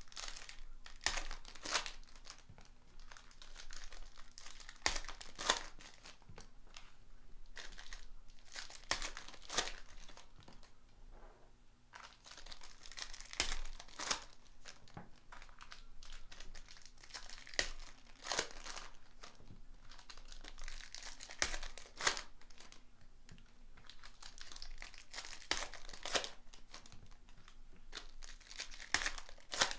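Foil wrappers of 2018 Prizm football card packs crinkling and being torn open by hand, in irregular bursts of rustling and crackling throughout.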